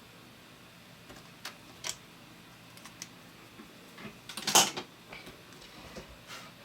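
Small hand-handling sounds of a pen and a CR2032 coin battery as the date is written on the cell: a few light clicks and taps, then a short, louder scratchy noise about four and a half seconds in.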